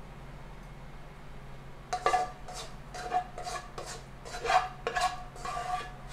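Spoon scraping and knocking against a bowl in a quick run of about ten strokes, starting about two seconds in, the bowl ringing with each knock.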